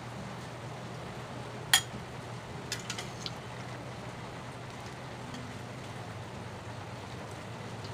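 A utensil clinks sharply against dishware with a short ring about two seconds in, followed by a few lighter clicks, over a steady low hum and hiss: soup being served.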